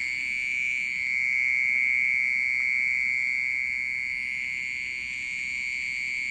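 Loud, steady, high-pitched ringing drone from in or around a flower pot, holding one pitch without a break, like a continuous insect trill.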